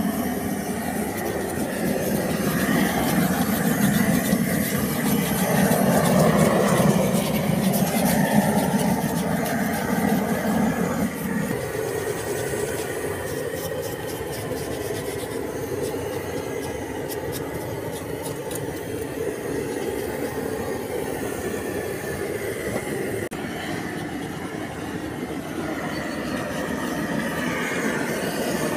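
Hand-held propane torch burning steadily as it singes the bristles off a slaughtered pig's hide. It is louder for the first ten seconds or so, then a little quieter.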